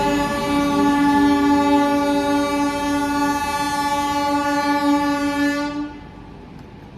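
WAP7 electric locomotive's air horn sounding one long, steady blast as the train departs, cutting off suddenly about six seconds in.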